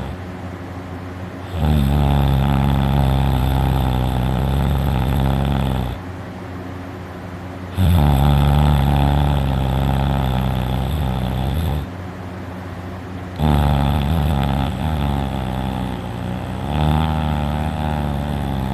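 A person snoring loudly in sleep: long, low, pitched snores about four seconds each, a new one roughly every six seconds, with quieter breathing between. The uvula is vibrating with the snores.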